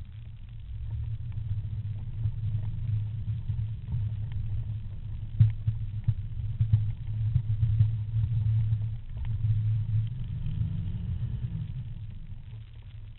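Off-road 4x4's engine running with a low rumble, with a few sharp knocks partway through and a brief rise in engine note before it fades near the end.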